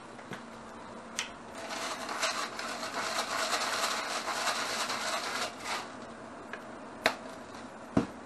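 Hand-held pepper grinder twisted, grinding black pepper with a dense, rasping crunch for about four seconds. Two sharp knocks follow near the end.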